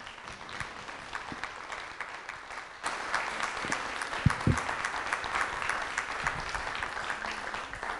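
Audience applauding, the clapping growing louder about three seconds in, with two low thumps a little after the middle.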